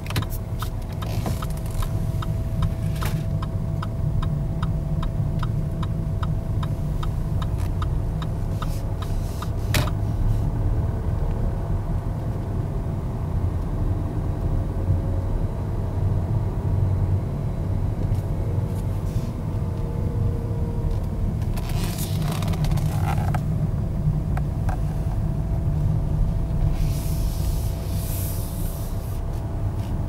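Jaguar XE's 2.0-litre 180 hp four-cylinder diesel running at very low speed, heard from inside the cabin as a steady low rumble. A light, rapid, regular ticking runs through the first several seconds, and two brief hissing swells come in the second half.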